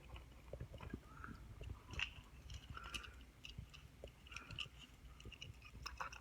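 Faint, irregular small clicks and crackles of a diecast toy car and its plastic box being handled close to the microphone.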